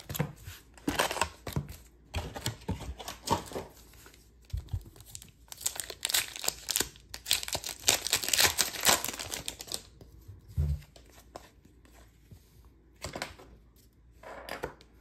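Foil hockey-card pack (2022-23 SP Authentic) crinkling and tearing open, with the packs rustling as they are handled. It goes quieter after about ten seconds, with a single soft thump.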